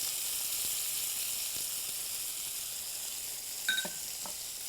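Chopped onion and tomato sizzling steadily in olive oil in a frying pan, with a short tap about three and a half seconds in.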